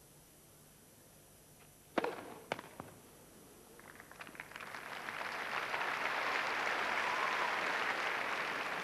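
Two sharp racket strikes on a tennis ball about half a second apart, the first the loudest. Crowd applause follows, building from about four seconds in and holding steady.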